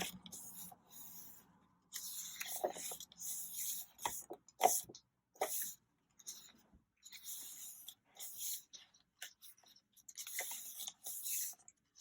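Pages of a paperback-style album photobook being turned and handled: short, irregular rustles of paper with quiet gaps between them.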